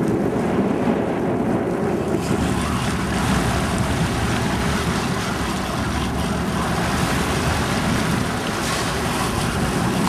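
Steady rumble of a sportfishing boat's engine under wind buffeting the microphone, with the wash of water along the hull.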